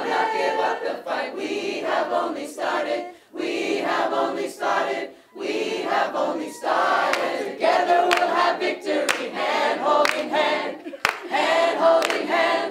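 A mixed group of men and women singing together a cappella, in phrases broken by short pauses.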